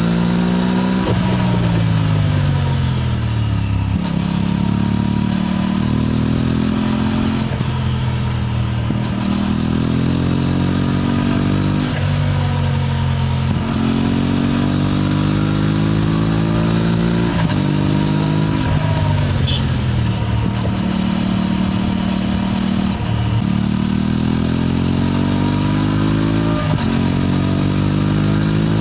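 Aprilia RS 457's parallel-twin engine and exhaust under way, its pitch climbing as it accelerates and then dropping back sharply, about eight times over and over.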